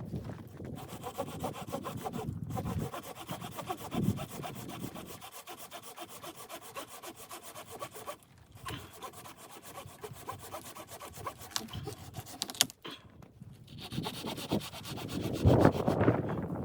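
A hand saw cutting through wood with a repeated rasping stroke, pausing briefly a couple of times.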